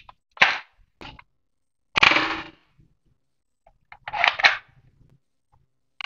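Toy gun shooting sounds: three sharp, cap-gun-like bangs about two seconds apart, each trailing off over about half a second, with a fainter click just after the first.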